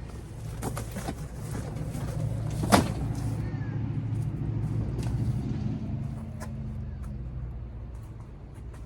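A motor vehicle's engine running with a steady low rumble that swells briefly in the middle, and one sharp knock about three seconds in among a few lighter clicks.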